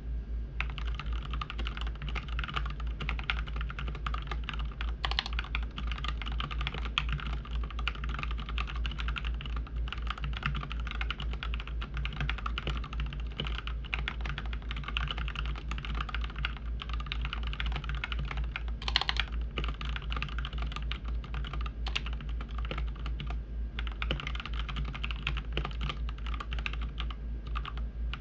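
Typing on a Keychron K4 mechanical keyboard fitted with lubed Gateron Milky Yellow linear switches and PBT Cherry-profile keycaps: a dense, continuous run of keystrokes with a few louder strokes among them.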